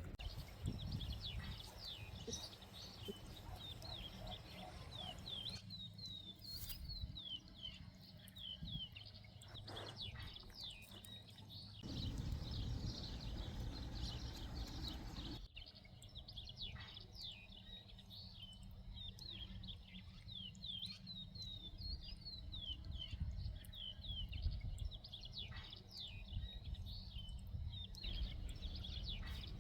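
Small birds chirping, a steady run of short, quick downward notes, over a low rumble.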